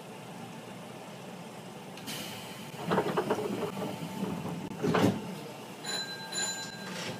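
A Nankai commuter train's sliding doors closing, with a hiss of air about two seconds in, a rattling thud of the doors shutting, and a sharper knock a couple of seconds later. Short high electronic beeps sound near the end.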